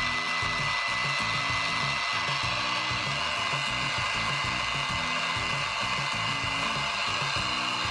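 Toy home appliance's sound effect: a steady whirring hiss with a thin high whine, cutting off abruptly near the end, over background music.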